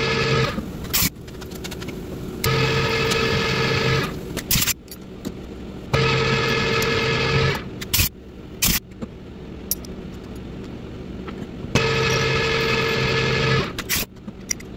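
Milling machine drilling into a finned aluminium heat sink with a twist drill. A steady whine comes and goes in bouts of about two seconds, with quieter stretches and a few sharp clicks between them.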